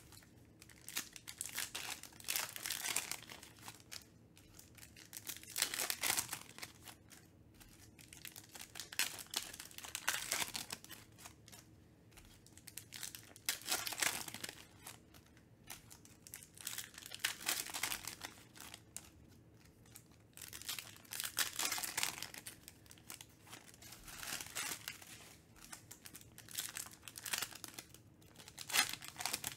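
Trading-card pack wrappers crinkling and tearing as packs are ripped open by hand, in repeated bursts a few seconds apart.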